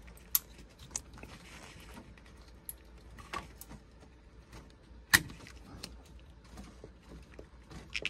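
Hands working at the engine's ignition wiring, tugging at a stiff coil wire on the distributor: scattered small clicks and knocks, with one sharp click about five seconds in.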